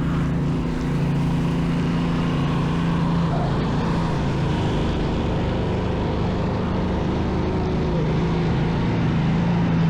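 A motor engine running steadily with a low, even hum over a constant hiss of street noise.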